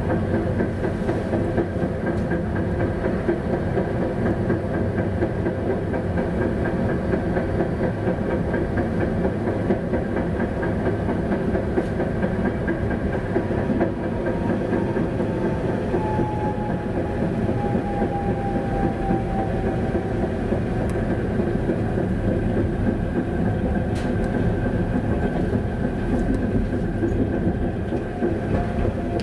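Tatra T6A5 tram running along street track, heard from inside: a steady rumble of wheels on the rails with a hum of several steady tones. About halfway through, a whine slowly falls in pitch.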